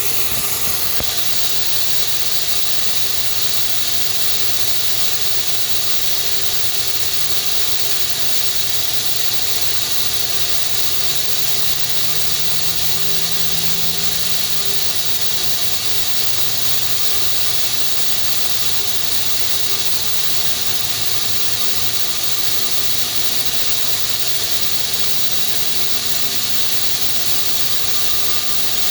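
FH680 CNC machine spindle running, a steady hissing whir with a high-pitched whine over it; the owner suspects a failing spindle bearing.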